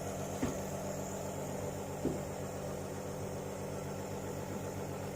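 Nebuliser compressor running with a steady hum, with a couple of faint knocks about half a second and two seconds in.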